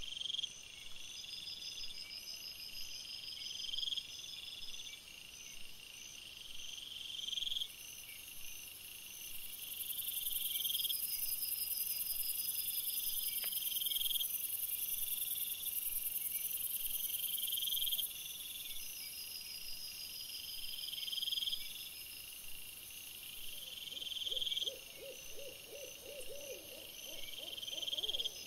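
Night-time woodland sounds: a high call repeated about every one and a half to two seconds over faint insect-like trilling, with a rapid low pulsing coming in near the end.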